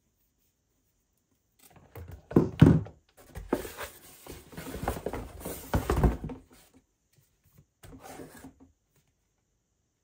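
A plastic bottle is set down on a wooden tabletop with a couple of thunks, starting about two seconds in. Cardboard scraping and knocking follow as a hand reaches into a cardboard gift box and pulls out another plastic bottle, with a short rustle near the end.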